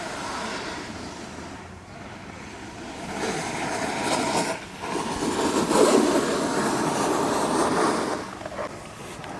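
Snowboard sliding over the slope, a rushing scrape that grows louder about three seconds in and eases off near the end.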